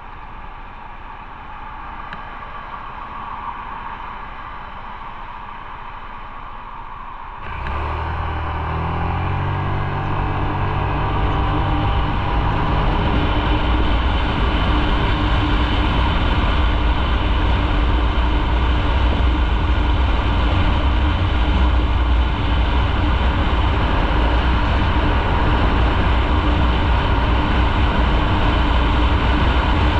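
Motorcycle riding on the road, with engine and wind noise. About a quarter of the way in the sound jumps sharply and builds for several seconds, then stays steady and loud.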